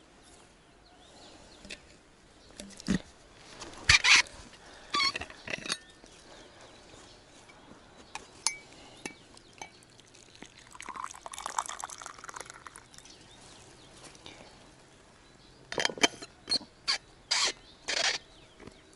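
Coffee poured from a steel thermos into a glass mug: a short splashing pour about eleven seconds in, lasting two to three seconds. Clusters of sharp clicks and knocks come a few seconds before it and again near the end.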